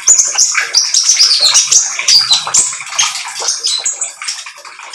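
Brown-throated sunbird (konin) singing a rapid, chattering run of high chirps and quick rising and falling notes, the rattling 'trotol' style of song. The song fades away near the end.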